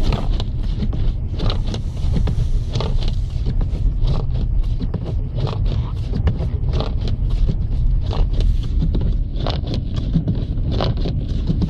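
Car cabin noise on the move: a steady low rumble of engine and road, with many short knocks and clicks scattered through it.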